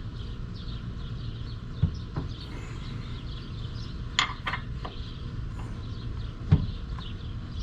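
A few sharp metallic clinks and knocks of tools and parts being handled on an outboard's power trim ram and mounting pins, the loudest about six and a half seconds in. Birds chirp faintly throughout.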